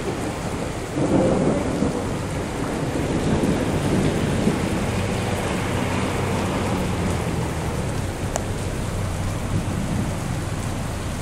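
Heavy rain pouring onto flooded pavement, a steady hiss throughout. A louder low rumble comes in about a second in, and a car goes slowly past through the standing water around the middle.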